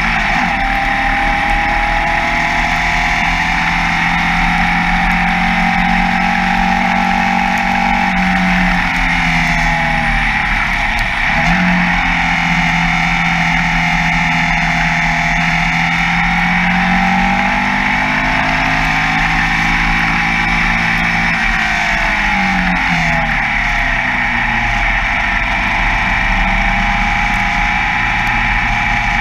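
Formula Vee racing car's air-cooled Volkswagen flat-four engine heard onboard at speed, its note held high along the straights. The pitch falls twice as the car brakes and shifts down for corners, about a third of the way in and again past two-thirds, then climbs again under acceleration, over a steady rush of wind.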